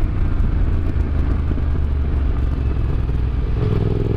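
Yamaha Ténéré 700's parallel-twin engine running on the road under a heavy low rumble of wind and road noise. About three and a half seconds in the engine note changes and settles into a steadier pitch.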